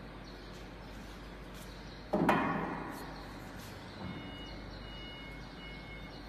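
One sudden clatter of metal treadmill parts about two seconds in, fading over about a second, as the handrail tube is brought up against the steel upright frame during assembly; a few faint clicks and knocks otherwise.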